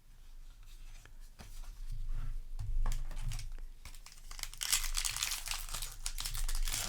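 Crinkling and tearing of a Magic: The Gathering play booster's foil wrapper being opened, with a few light clicks in the first half and dense crinkling from about halfway through.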